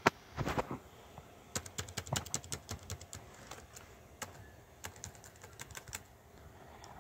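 Keys clicking on a Dell Inspiron 8500 laptop keyboard in irregular runs of presses, with a sharper click right at the start.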